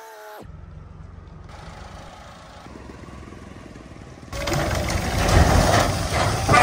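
Tractor engine running steadily at a moderate level; about four seconds in, an edit cuts to a much louder, rougher passage of engine and noise.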